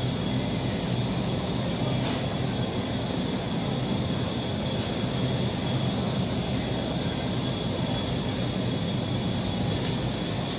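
Steady low room roar inside a large supermarket, with a faint, steady high-pitched whine over it.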